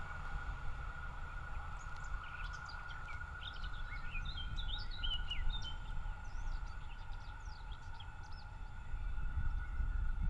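Small birds chirping and singing in a burst of quick high calls over a steady high-pitched tone and a low rumble.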